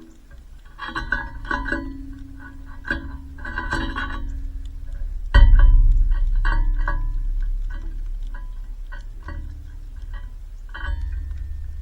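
Background music of light plucked notes over low held bass notes, the bass changing about a second in, near the middle and near the end.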